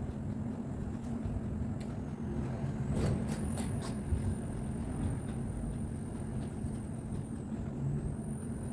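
A steady low rumble of background noise, like an engine or traffic running nearby, with a faint high steady whine and a few short clicks about three seconds in.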